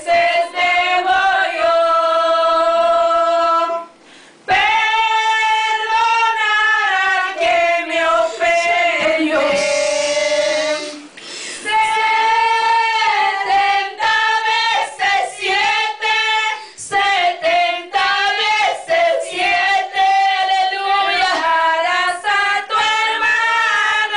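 Women's voices singing a slow hymn without accompaniment, with long held notes. The singing breaks off briefly about four seconds in and again about eleven seconds in.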